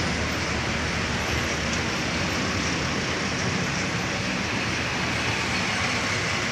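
Light cargo trucks passing close by one after another through a sharp bend, with engine noise and steady road noise.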